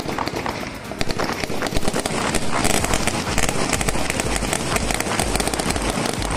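Ranks of police firing blank rifle rounds in a feu de joie: a dense, rapid crackle of shots rippling along the line, heaviest from about a second in.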